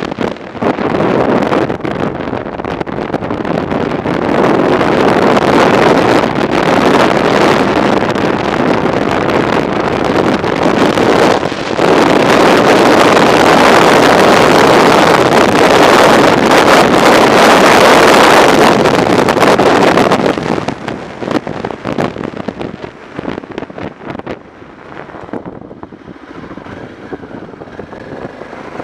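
Wind noise on the microphone of a BMW F650 motorcycle riding at road speed, with the bike's engine running beneath it. The wind gets louder about four seconds in, stays loud until about twenty seconds in, then drops off to a lower level.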